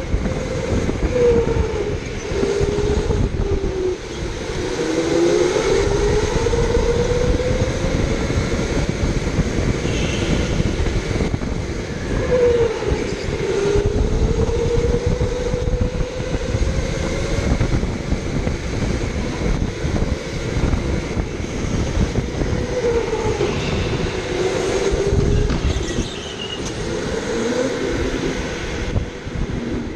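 Electric go-kart heard from on board: its motor whine rises and falls every few seconds as the kart speeds up and slows for corners, over a steady rumble of the chassis and tyres on the concrete floor.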